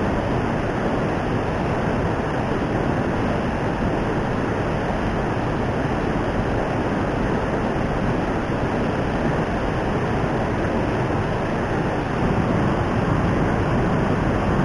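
Steady, loud rushing of fast-flowing river water.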